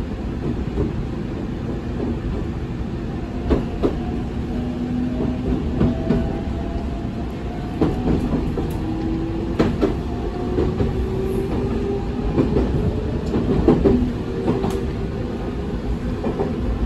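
Onboard running sound of a JR 313 series 3000-subseries electric train: the Toshiba IGBT VVVF inverter and traction motors whine in tones that rise slowly in pitch as the train gathers speed, over a steady wheel rumble. Wheels click over rail joints every second or two.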